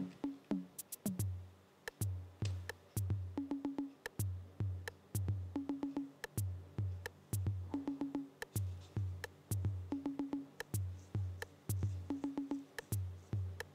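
Background lo-fi electronic music with a drum-machine beat: a low thump about twice a second, crisp ticks between, and a short repeating synth figure.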